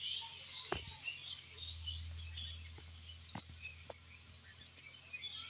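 Small birds chirping faintly in the background, with a few sharp clicks about a second in and again around three and a half to four seconds, over a steady low hum.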